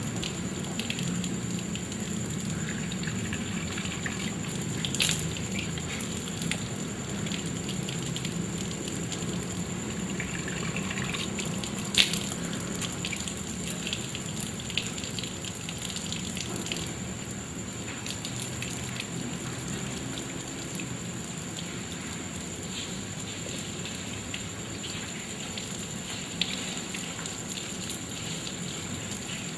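Water running steadily from an outdoor tap and splashing on the ground below, with hands splashing water onto the face during ablution. A couple of sharp clicks stand out, about five and twelve seconds in.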